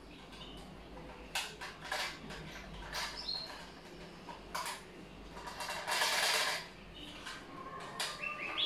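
Plastic clicks and knocks from an air fryer basket being handled and turned over, with a longer rustle about six seconds in and a few short squeaks.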